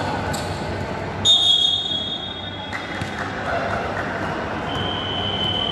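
A referee's whistle blows a long, steady blast about a second in, and a second, fainter whistle sounds near the end, over the ongoing noise of a basketball game with a ball bouncing.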